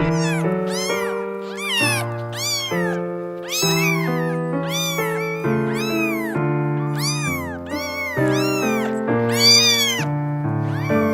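A cat meowing over and over, about twice a second, each meow a short call that rises and falls in pitch, over background music with held notes.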